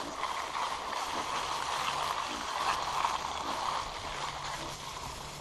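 Bicycle tyres rolling through dry fallen leaves and grass, a steady rustling crackle.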